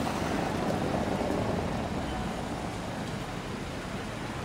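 Steady outdoor background noise with no distinct event.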